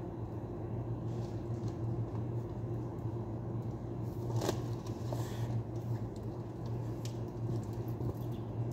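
Steady low machine hum, with a single sharp click about halfway through.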